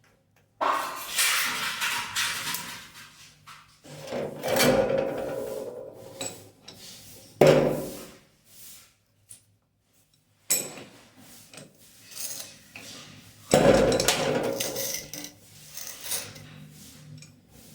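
Tools and fittings knocking, scraping and rubbing in several separate bouts during plumbing work on a kitchen sink mixer tap, with one sharp knock about halfway through.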